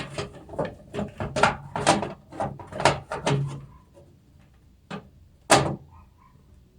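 A hard drive being fitted into the metal drive bay of a PC case: a quick run of clicks and scrapes, then a light knock and a sharper knock near the end.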